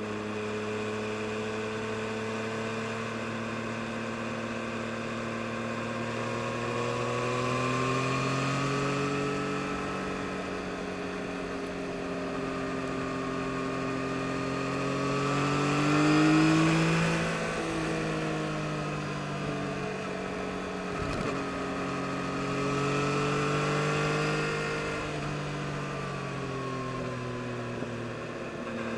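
2022 Yamaha MT-09 SP's three-cylinder engine under way, its revs rising and falling as the bike accelerates and eases off, loudest about halfway through. A short sharp click comes about three quarters of the way in.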